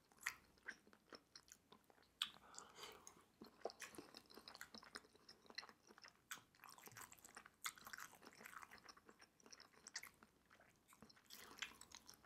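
Faint chewing of soft, chewy Korean rice cakes (tteokbokki), with many small wet mouth clicks scattered throughout.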